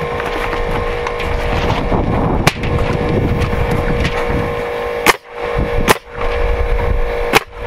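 A nail gun firing four times, nailing a rough-sawn strapping board to the wall framing, with sharp shots about 2.5, 5, 6 and 7.5 seconds in. A steady motor hum runs underneath.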